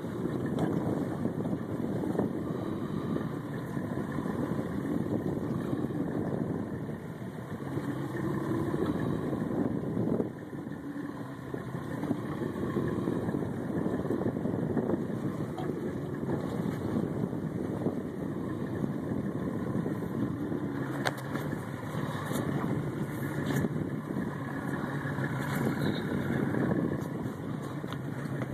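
Boat engine running steadily, a low, even drone throughout.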